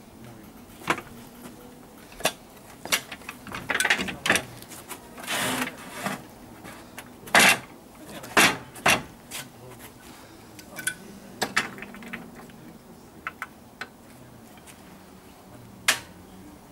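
Battipav large-format rail tile cutter being worked on a 9 mm glossy porcelain slab: scattered clicks and sharp knocks of the cutter head and tile, several loud ones about seven to nine seconds in, with a rasping run about four to six seconds in.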